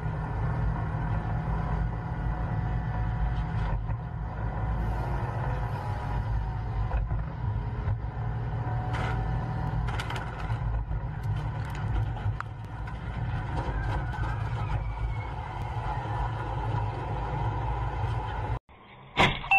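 Steady low rumble of a vehicle driving, heard from inside the vehicle. Sharp metallic clanks and bangs come about nine to twelve seconds in, as large steel pipes fall off a flatbed truck ahead and hit the road. A short loud bang comes just before the end.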